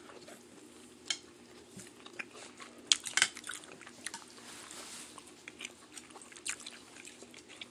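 Close-miked eating of noodle soup: quiet chewing with a few short, sharp clicks and smacks scattered through it.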